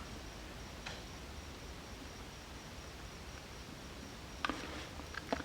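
Faint, scattered metallic clicks of a bolt and washer being handled and fitted to a rear brake caliper, over a steady low hum, with a couple of clicks about a second in and more near the end.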